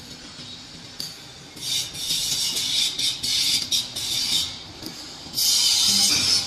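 Gritty scraping in bursts, starting about one and a half seconds in and loudest near the end, as freshly pressed clay interlocking bricks are handled and set down on a concrete floor.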